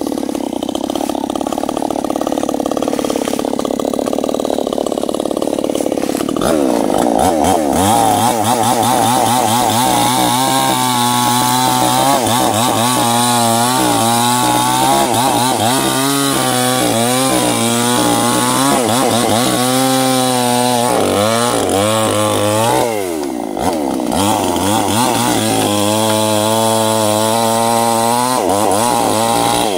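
Stihl chainsaw cutting into a large sengon (albizia) trunk. It runs at lower speed for the first few seconds, then at high revs under load, its pitch wavering as the chain bites. The pitch dips briefly about three-quarters of the way through before picking up again.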